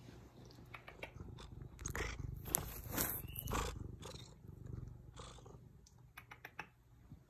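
Ragdoll cat purring steadily close to the microphone. Scuffs and clicks from her head rubbing against the phone come in over the purr, loudest between about two and four seconds in.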